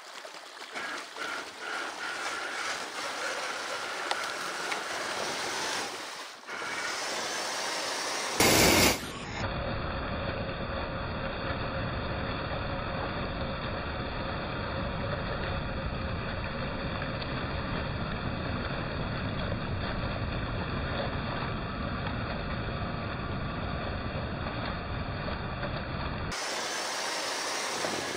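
Rushing creek water with a large electric RC truck driving and splashing through it, and a brief loud burst of noise about eight seconds in.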